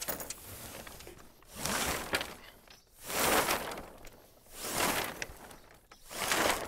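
Tornado catamaran's mainsail being hoisted by hand on the main halyard: the sailcloth and rope rustle in swells about every second and a half, one for each pull, as the sail slides up the mast track.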